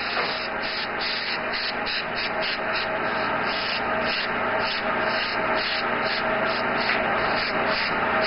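Airbrush hissing steadily as compressed air sprays paint, with a faint steady hum underneath.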